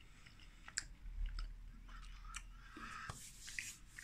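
A person chewing a caramel chocolate bar with hazelnut pieces, making faint, scattered small clicks and crunches.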